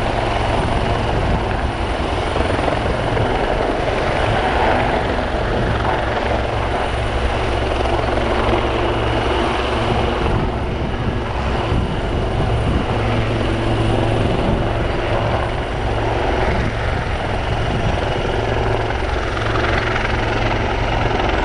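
Royal Navy Westland Lynx and AgustaWestland Wildcat helicopters flying close by: a steady, loud, fast beat of rotor blades over the hum of their turbine engines.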